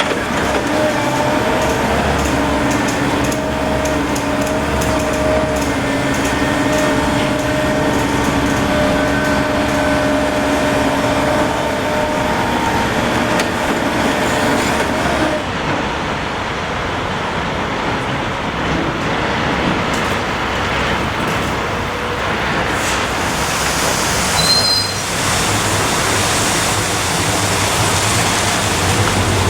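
Heavy vehicle and machinery noise. A steady engine drone carries through the first half, then gives way to a general rumble, with a short high squeal about three quarters of the way through.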